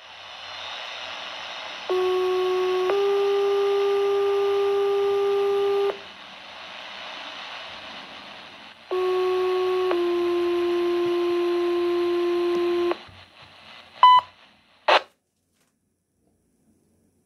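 Fire-dispatch two-tone paging tones received over a Baofeng BF-F8HP Pro handheld radio's speaker. Over steady receiver hiss, a one-second tone steps into a three-second tone about two seconds in, and a second one-second-then-three-second pair follows about nine seconds in. The transmission ends in a short high beep and a brief burst of noise.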